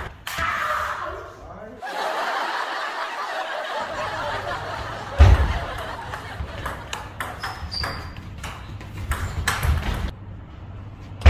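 Table tennis rally: the ball clicking sharply off the rackets and the table again and again, the hits coming thick from about five seconds in, with one louder thump about five seconds in.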